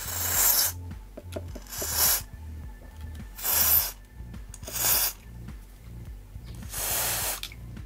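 Aerosol contact-cleaner spray hissing through its thin extension straw in five short bursts, the last one longer, onto a cassette recorder's socket and switch contacts.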